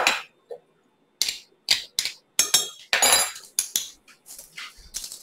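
Metal garlic press clicking and clinking in a run of irregular sharp knocks and short rasps as garlic cloves are squeezed through it.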